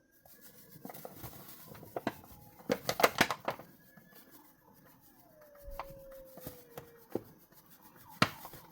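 Scattered light taps, scrapes and clicks of a bowl and utensils handled while flour is measured out on a kitchen scale, with a quick run of sharp clicks about three seconds in and a single sharper knock near the end.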